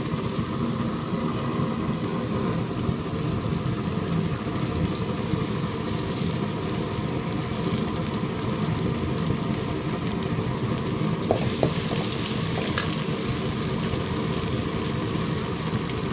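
Onions, tomatoes and curry leaves sizzling steadily in hot oil in an aluminium wok, with a metal spatula stirring and scraping as a spoonful of paste is mixed in.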